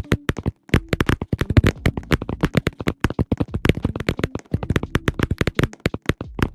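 Bubble wrap being popped: many sharp pops in quick, irregular succession, with a brief pause a little under a second in.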